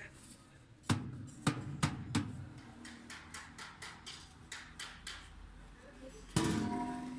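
Hands knocking and handling a new washing machine's stainless-steel drum and metal lid: four sharp knocks in the first couple of seconds, then lighter taps and rustles, and a louder thud with a lingering hum near the end.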